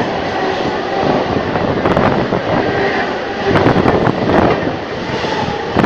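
Mumbai suburban electric train running at speed, heard through an open door: a loud steady rush of wheels and air with repeated clacks of wheels over rail joints. A second suburban train passes close alongside on the adjacent track, adding to the rush.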